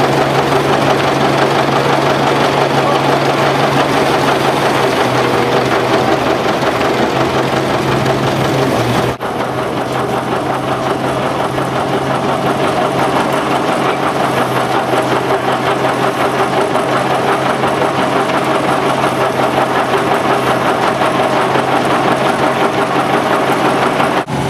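An engine running steadily at a constant speed, broken off for an instant about nine seconds in and again near the end.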